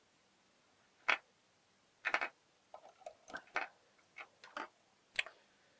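Small metal parts of an opened GU mortise lock clicking and clinking as they are handled and lifted out of the case. A sharp click comes about a second in, then a run of irregular clicks and light knocks, and a last sharp click near the end.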